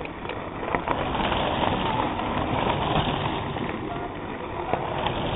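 Mountain bikes riding past on a gravel track: a steady rush of tyre and outdoor noise with a few sharp clicks, and spectators' voices faintly at times.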